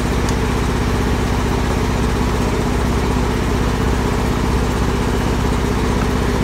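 A semi truck's engine idling steadily, a constant low rumble with an even rapid pulse.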